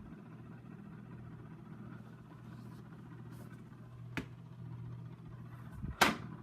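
Kitchen oven's steady low motor hum, with a short click about four seconds in and a louder clack about six seconds in.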